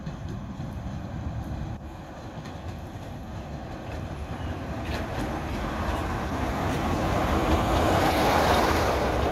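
Class 46 'Peak' diesel locomotive running into the platform with its train, its engine growing steadily louder as it approaches and is loudest as it draws past close by, near the end.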